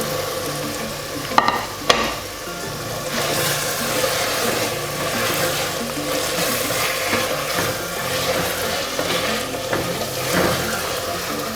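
Mutton pieces sizzling as they fry in hot oil and masala in a clay handi while being stirred, with two sharp knocks about a second and a half in.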